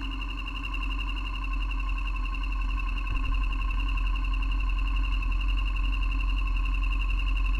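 BMW R1200GS boxer-twin engine running at a steady, low speed, a constant drone with a high whine over it.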